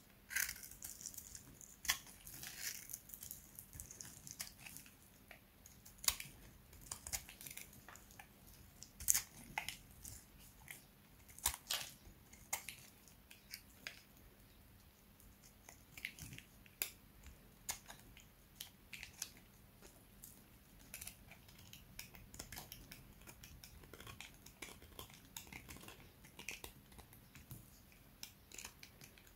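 Box-cutter blade scraping and carving a bar of dry, hard soap: irregular crisp crackles and clicks as shavings break off.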